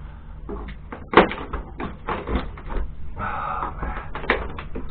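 Fire-damaged wooden fittings in a boat's cabin being pried and broken off: a run of irregular cracks, knocks and scrapes, with one sharp crack about a second in.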